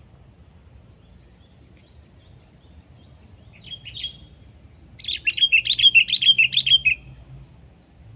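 Sooty-headed bulbul (kutilang) calling: a short call about four seconds in, then a loud, fast run of bubbly notes lasting about two seconds.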